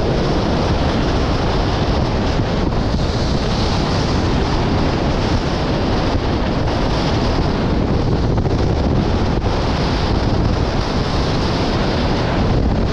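Steady, loud rush of wind buffeting the microphone mixed with water rushing and spraying past the hulls of a Nacra 20 beach catamaran sailing fast in strong wind.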